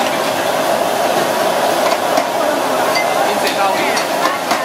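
Busy night-market stall ambience: a steady wash of indistinct chatter and general noise over a faint steady hum, with a few light clicks and knocks from handling at the counter.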